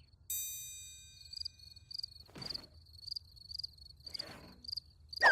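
A single bell-like ding that rings and fades, then crickets chirping in an even, steady pulse, the cartoon sound effect for a hushed pause. Two soft whooshes pass under the chirping, and a quick falling whistle comes at the very end.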